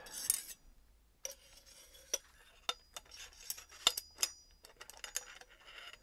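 Metal parts of a Suntour CR880 AL bicycle suspension fork clinking and knocking as they are handled: a series of sharp separate clicks, some ringing briefly.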